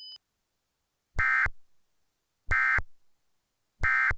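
Emergency Alert System end-of-message signal: three short bursts of SAME digital data tones, each about a third of a second long and spaced a little over a second apart, marking the end of the alert.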